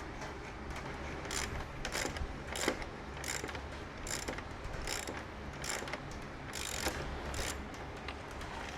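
Ratchet wrench being worked in quick back-and-forth strokes, its pawl clicking on each return stroke, about one stroke every half second or so, running the bolt onto the motorcycle's rear axle.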